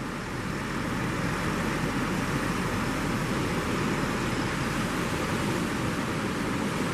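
Steady rushing noise of surf breaking on the beach, with wind on the microphone.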